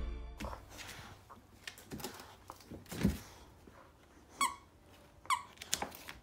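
Squeaker in a plush zombie-hand dog toy squeaked twice by a boxer puppy mouthing it: two short high squeaks about a second apart in the second half. Before them come soft knocks and a thump about three seconds in.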